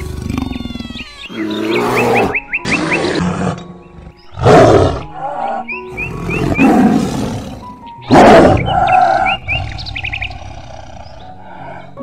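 An edited mix of wild animal calls: several loud, harsh calls, the loudest about halfway through and again about two-thirds of the way in, with quick runs of short high chirps in between, over background music.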